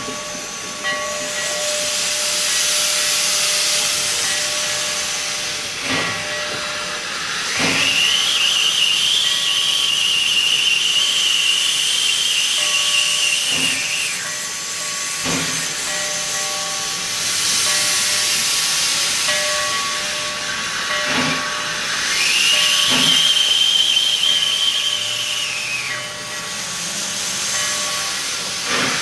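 1875 Baldwin 2-6-0 steam locomotive Glenbrook hissing steadily with steam. It gives two long, high single-note whistle blasts, each about six seconds, sliding up as they open and down as they close. A few knocks come in between.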